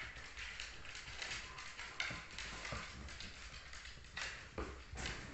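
Dog claws clicking and scrabbling on a wooden floor as an adult dog and a cavoodle puppy play, with a couple of louder knocks near the end.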